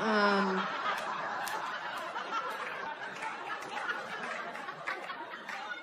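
Live audience laughing together at a stand-up comedian's punchline, a steady wash of laughter that holds for several seconds.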